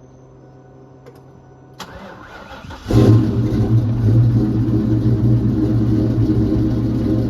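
Freshly rebuilt Ford 5.0 V8 being started: a click, about a second of starter cranking, then it catches about three seconds in and settles into a steady, loud idle.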